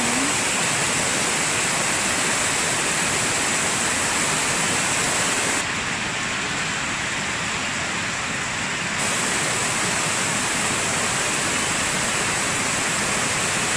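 Heavy rain falling steadily in a downpour, an even hiss. About six seconds in it turns duller and slightly quieter for about three seconds, then returns.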